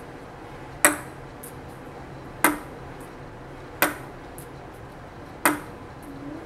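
A ping pong ball bouncing off a desk top and caught, four times about a second and a half apart, each bounce a sharp click, with fainter ticks in between.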